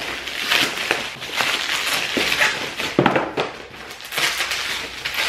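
Clear plastic packing wrap crinkling and crackling as boxes of Pocky are pulled out of it, with several sharp knocks as cardboard snack boxes are handled.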